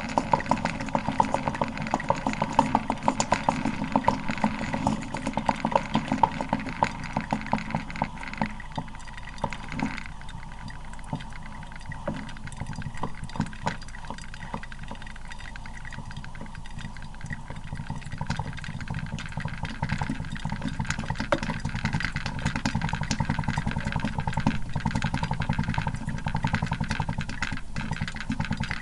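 Coffee maker brewing: a dense, steady gurgling and sputtering with a hum underneath. It eases off about nine seconds in and builds up again after about twenty seconds.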